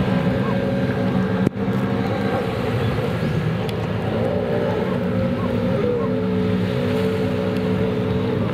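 Racing jet ski engines running at high speed, a steady drone whose pitch wavers and shifts a few seconds in, with a brief break about a second and a half in.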